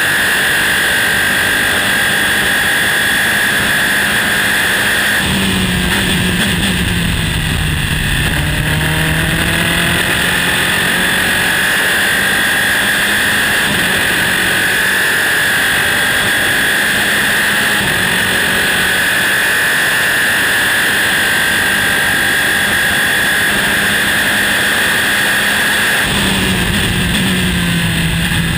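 Formula 3 Dallara-Volkswagen racing car's engine at full throttle, heard from the cockpit with heavy wind and road rush. About five seconds in and again near the end the revs fall away through a string of downshifts under braking, then climb back to a steady high note.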